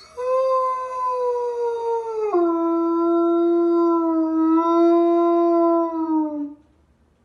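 A dog howling: one long howl of about six seconds that drops to a lower pitch partway through and slides down at the end.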